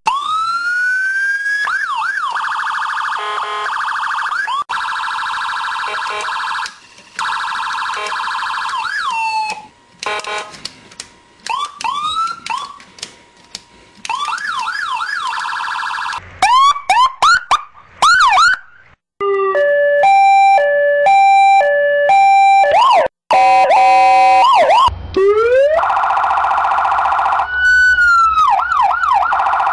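A series of electronic police car sirens, one clip after another with abrupt cuts. It opens with a rising wail, moves to fast repeated yelp sweeps, and around two-thirds of the way through has a high-low two-tone that alternates between two steady pitches, before returning to wailing and yelping sweeps.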